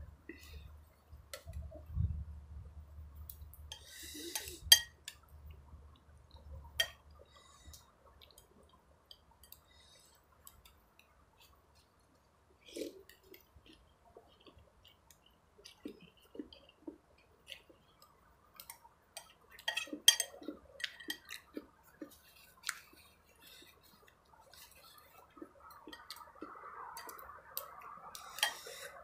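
Someone eating noodle soup: scattered sharp clinks of a fork and spoon against a bowl, with chewing between them. The clinks bunch together about five seconds in and again around twenty seconds in.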